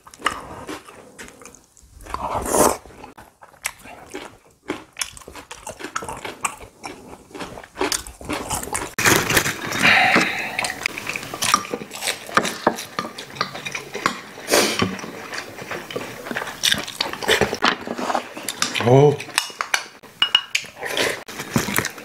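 Chopsticks and spoons clicking and scraping against ceramic bowls and dishes during a home meal, with chewing and eating noises. Soft, brief bits of voice come and go among the clinks.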